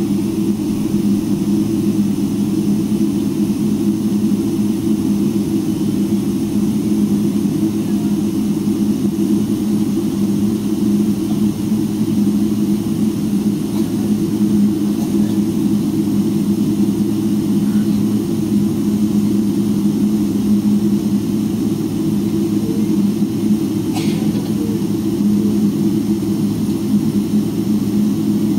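Steady engine and cabin hum inside a Boeing 777-300ER, its GE90-115B jet engines running at low power as the airliner taxis. One brief click is heard near the end.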